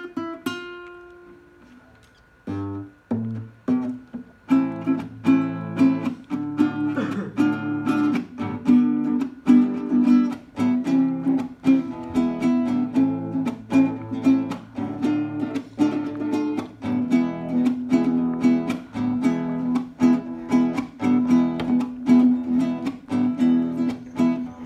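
Classical guitar played by hand: a few single plucked notes, a short lull, then steady rhythmic strumming of chords at about four strokes a second.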